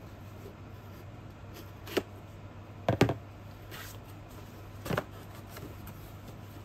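A cardboard subscription box being handled and opened by hand: low rustling of cardboard with three sharp snaps, about two, three and five seconds in, the one near three seconds the loudest.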